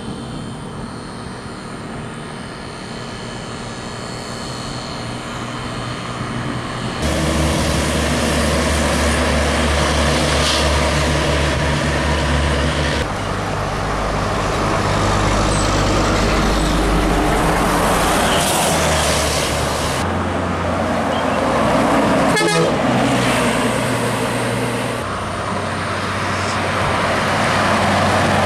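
Intercity buses driving past on a highway, diesel engines running over tyre and road noise, with horns sounding. The sound changes abruptly several times as one passing bus gives way to the next.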